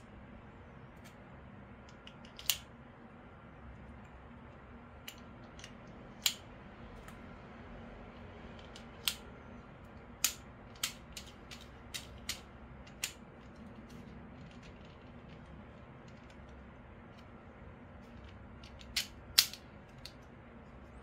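Short sharp clicks of cartridge shells being seated one by one into the cylinder of a Marushin M36 airsoft revolver, then two louder clicks close together near the end as the cylinder is swung shut, over a faint steady hum.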